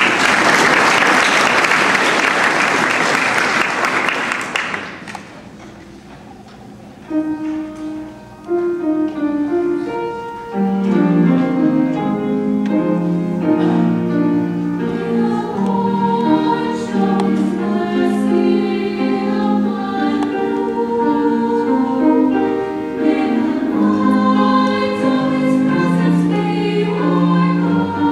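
Audience applauding for about five seconds, then after a short pause a mixed high-school choir begins singing: a few voices first, with the lower voices and the full choir joining a few seconds later.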